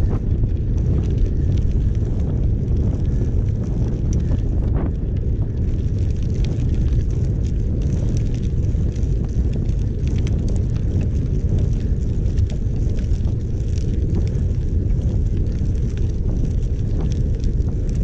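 Steady low rumble of wind buffeting the microphone of a camera on a moving bicycle, with a faint crackle of tyres rolling over a gravel towpath.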